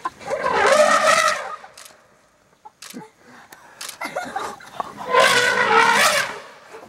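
African elephant bull trumpeting twice, two loud blasts each over a second long, the first just after the start and the second about five seconds in, as a threat display at the wild dogs.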